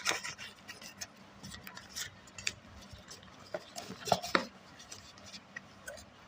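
Small objects being handled and set down while a mini fridge is being tidied: scattered light clicks and taps, with a louder knock about four seconds in.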